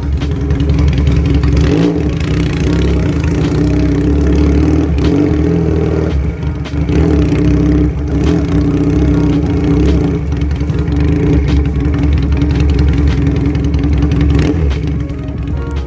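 Benelli Patagonian Eagle 250's V-twin engine running through an aftermarket exhaust as the bike is ridden slowly in circles, with a few brief dips in the sound as the throttle eases.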